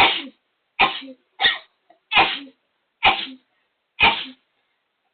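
A person sneezing over and over in a rapid fit: six short, sharp sneezes, each loud at the start and fading quickly, about a second apart.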